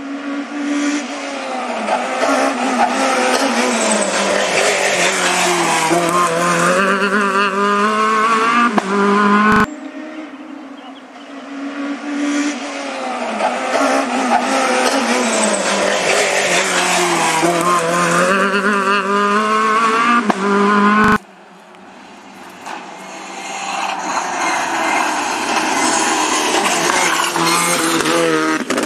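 Rally car engines revving hard and running up and down through the gears as the cars climb at speed and pass close by. The sound cuts off abruptly twice, about ten and twenty-one seconds in, and each time a new pass builds up again.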